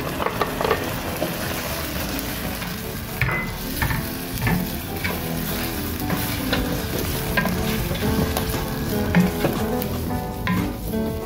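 Chicken cooking in a pan of watery green masala paste, sizzling while a wooden spoon stirs it, with frequent short scrapes and taps of the spoon against the pan.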